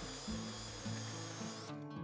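Background music with a stepping melody, over a power tool's steady high whine that cuts off abruptly near the end.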